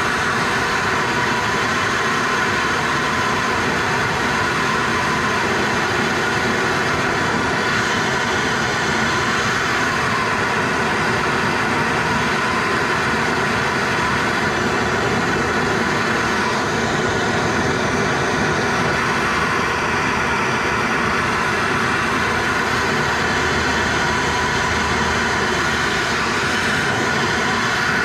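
Hand-held gas torch burning steadily with a constant rushing hiss as its blue flame heats a rusted fitting.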